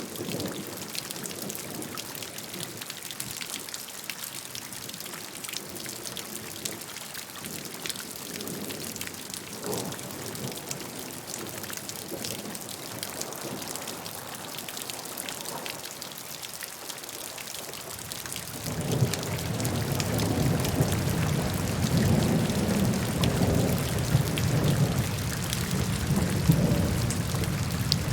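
Steady rain falling, with the fine patter of many drops. About two-thirds of the way in, a low rolling rumble of thunder swells in and keeps going, louder than the rain.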